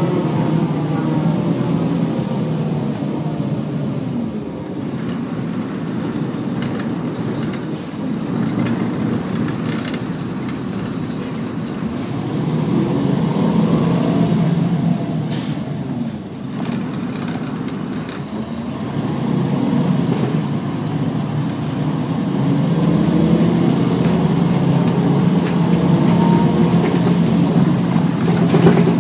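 Cummins M11 diesel engine and Allison B400R automatic transmission of a 1999 Gillig Advantage bus running under way, the engine pitch falling as it slows at the start, then climbing again as the bus pulls away and accelerates in the second half.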